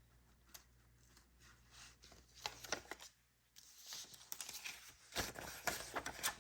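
Paper bills being handled: soft rustling and crinkling with light clicks, a brief silent gap a little past halfway, then busier rustling.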